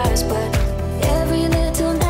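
Background music with a steady beat, about two beats a second, and held melodic notes.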